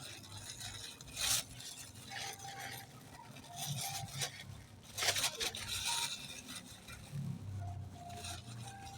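Scraping and rustling of packaging being handled as an item is wrapped back up, in several short bursts, the loudest about a second in and again around five to six seconds in.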